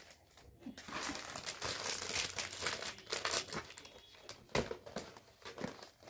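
Gift wrapping crinkling and crumpling as a present is unwrapped: a run of crackling rustles with a few sharper crackles in the second half.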